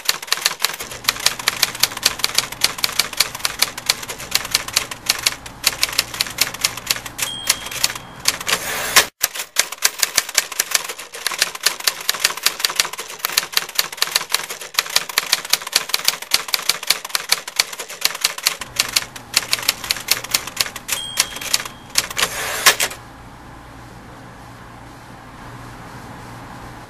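Manual typewriter keys clacking rapidly, with a short ding and then a longer rasping sweep, like a carriage return, about eight seconds in and again about 21 seconds in. The typing stops suddenly about 23 seconds in, leaving a steady faint hiss.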